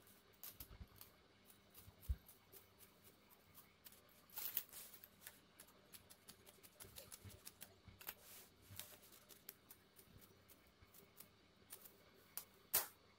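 Large tailoring scissors cutting through silk blouse cloth and its lining: faint snips and cloth rustling, with a sharper, louder snip near the end.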